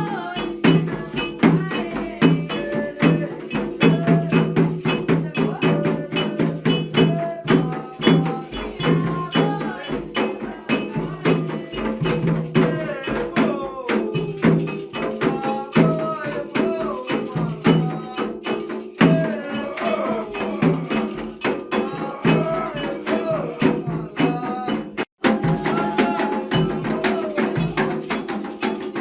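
Candomblé ritual music: drums and a bell struck in a steady, busy rhythm, with voices singing over them. The sound cuts out for an instant about 25 seconds in.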